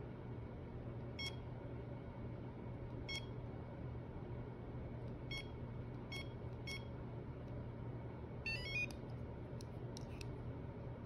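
Handheld face-and-neck massager beeping: five short single beeps, one to two seconds apart, then a quick rising run of electronic tones about eight and a half seconds in, followed by a few faint clicks.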